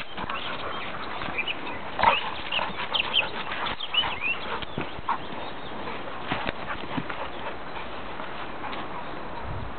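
Two Labrador retrievers play-wrestling in dry leaves: scuffling and rustling of paws and bodies, with a cluster of short high yelps and whines about two to four seconds in, calmer near the end.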